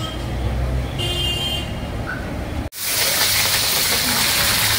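Low kitchen hum with a few faint high beeps. About two and a half seconds in, a sudden cut to a steady, loud hiss from a wok of hot oil over a gas burner.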